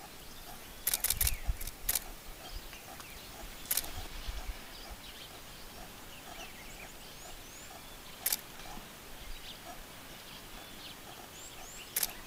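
Quiet riverside ambience with small birds chirping faintly. Several sharp clicks and a couple of low thumps come through early on and near the end.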